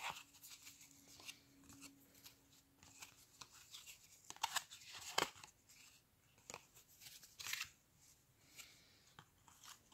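Cardboard trading cards being slid off a hand-held stack one at a time: faint, irregular swishes of card rubbing on card with small clicks, a few louder swipes in the middle and about three-quarters through.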